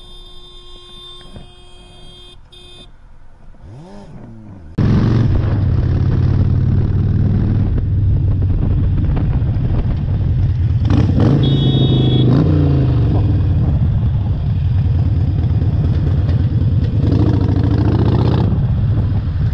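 Motorcycle engine running loudly and steadily on the road, picked up by the rider's bike-mounted camera with road and wind noise. It starts suddenly about five seconds in, after a quieter stretch, and eases off briefly a little past halfway.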